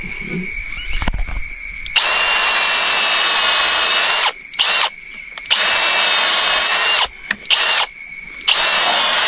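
Power drill running in three long bursts of one to two seconds each, with short blips of the trigger between them. The motor whine holds a steady pitch during each run.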